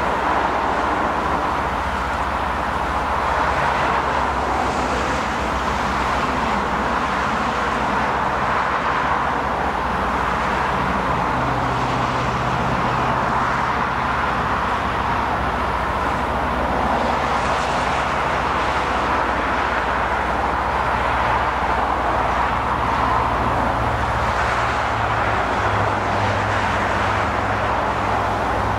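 Steady highway traffic noise from cars passing below, mixed with a loaded BNSF coal train of hopper cars rolling by and the low hum of a mid-train diesel locomotive's engine, which grows stronger in the second half.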